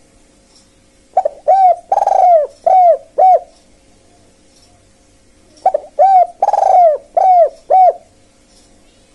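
Spotted dove cooing: two phrases of about six coos each, one starting about a second in and the other a little past halfway, each note rising then falling in pitch, with one longer coo in the middle of each phrase.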